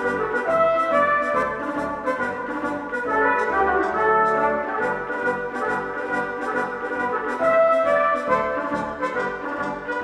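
Background instrumental music: a sustained melody over a steady beat.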